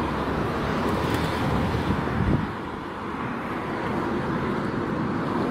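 Outdoor street ambience: wind rumbling on a phone microphone over road traffic noise.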